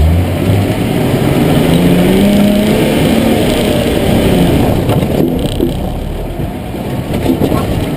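Muscel M461 4x4's engine pulling hard up a steep dirt hill: its note rises over the first two or three seconds, then drops back as the vehicle crests and rolls down the other side, over a steady rumble of tyres and body noise.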